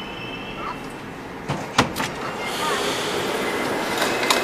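Metrowagonmash 81-765 'Moskva' metro train heard from inside the car as it pulls out of a station. Its running noise has a few sharp clacks about a second and a half in, then grows louder, with a steady high whine, as the train enters the tunnel.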